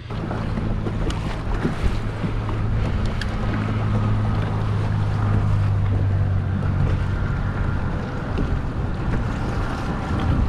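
A motor running steadily, a low hum with a faint higher whine, mixed with wind rumbling on the microphone and a few small knocks in the first few seconds.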